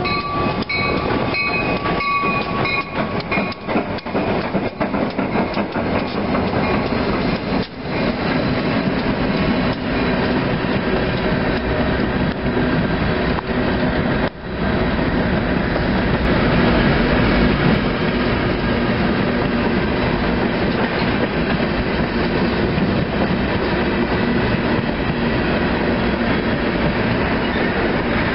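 Union Pacific freight train of diesel locomotives and covered hopper cars passing close by: the end of a locomotive horn blast dies away in the first few seconds, then the steady rumble of the train with wheels clicking on the rails as the cars roll past.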